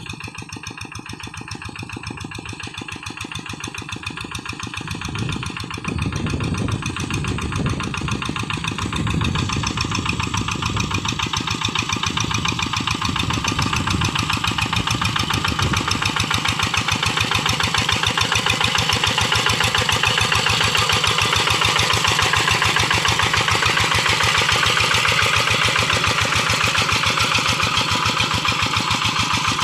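Kubota single-cylinder diesel engine of a Quick G1000 hand tractor running steadily while plowing a flooded rice paddy. It grows steadily louder over roughly the first half, then holds level.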